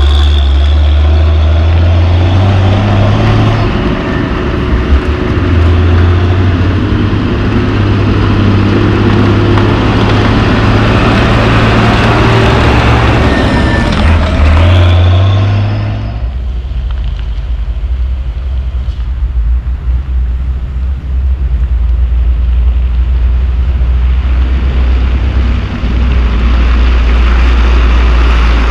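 Heavy diesel dump truck engine labouring as it crawls through deep mud, its note stepping up and down with the throttle. About halfway through the sound drops abruptly to a steady low engine rumble.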